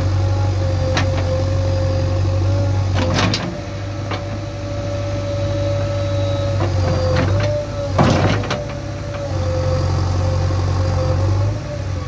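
JCB 3DX backhoe loader's diesel engine running under load with a steady hydraulic whine while the backhoe arm works, the engine hum easing briefly a few times. Several sharp clanks come through it, the loudest about eight seconds in.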